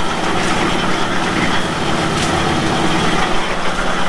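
Engine of construction machinery running steadily, with a constant low hum under an even mechanical noise.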